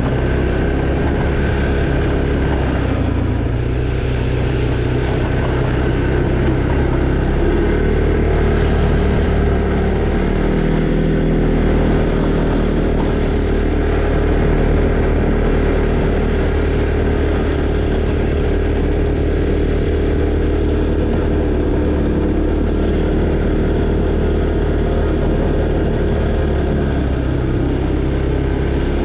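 Arctic Cat Alterra 700 ATV's single-cylinder four-stroke engine running while riding, its pitch stepping up and down several times as the speed changes.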